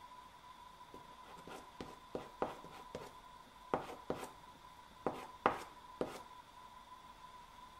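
Soft pastel stick tapping and dabbing on textured pastel paper over a hardboard drawing board: about a dozen light, irregular taps over four or five seconds. A faint steady high tone runs underneath.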